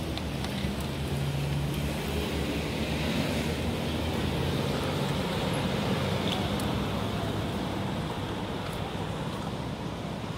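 Steady road traffic noise from passing cars, with one vehicle's low engine hum growing louder for a few seconds from about a second in.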